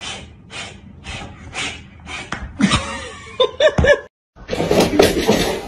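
A person laughing: breathy, wheezing laughs about two a second that turn into voiced laughter. After a short break near four seconds, a louder, noisy jumble of sound follows.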